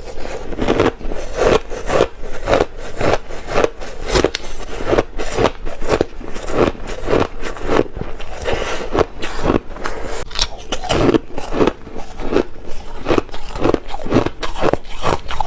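Thin, crunchy ice being bitten and chewed close to the microphone, a steady run of crunches two or three a second.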